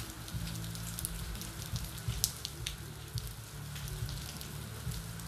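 Steady low hum with faint scattered crackles and clicks: background noise of the recording.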